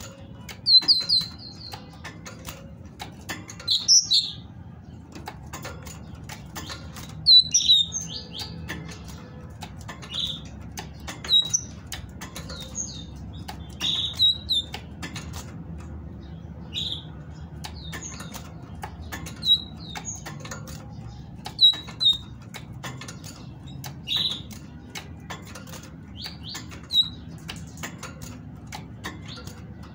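Caged female great tit giving short, high chirping calls, singly or in quick little groups every second or two, the calls a female uses to prompt males to sing. Between the calls come frequent fluttering wingbeats and sharp clicks as the bird moves about the wire cage.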